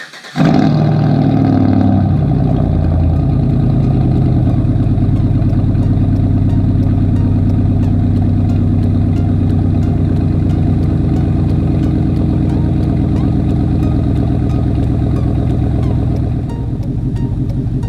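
A 2005 GMC Sierra 1500's 5.3-litre Vortec V8, fitted with dual exhaust, catching on a cold start just after the starter. It flares briefly, then holds a steady, loud fast cold idle that settles a step lower near the end.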